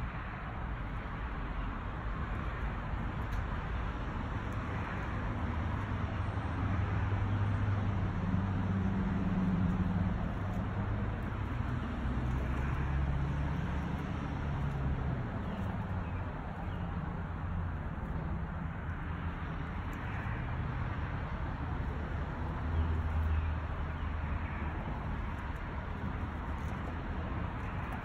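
Low hum of motor vehicles, swelling and shifting in pitch a few times, over steady outdoor background noise.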